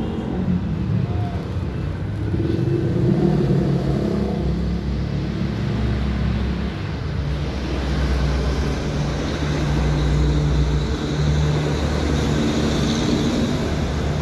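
Suzuki Satria FU 150 carburetted single-cylinder engine running steadily, freshly filled with 0W-20 engine oil.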